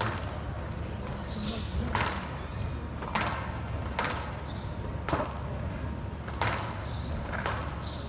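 Squash rally: the rubber ball is struck by rackets and hits the court walls in sharp knocks about once a second.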